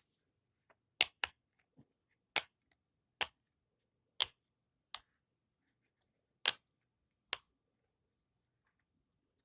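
Silicone unicorn pop-it fidget toy having its bubbles pressed through one by one: about nine sharp pops at uneven spacing, roughly one a second, some fainter than others.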